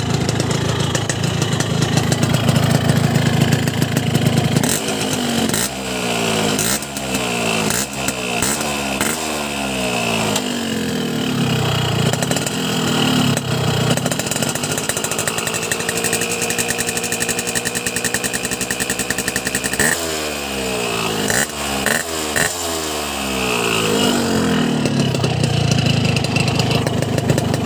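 Warm two-stroke motorcycle engine with a Boban C33 exhaust, idling, then revved in a run of quick throttle blips, held at a steady higher rev for a while, blipped several more times, and settling back to idle near the end. The exhaust note is crisp and the engine soft-sounding.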